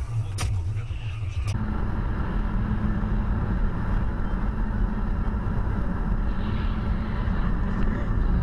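Car driving on a highway, heard from inside the cabin: steady road and engine rumble with a low hum. It begins with a sharp click about a second and a half in, after a brief quieter stretch with another click.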